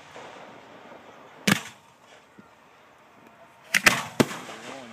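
Fireworks going off: one sharp bang about a second and a half in, then three quick bangs close together near the end.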